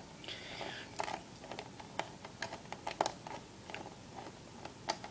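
Phillips screwdriver working a small screw into a metal CPU bracket on a motherboard: irregular small clicks and taps, with a brief scrape about half a second in.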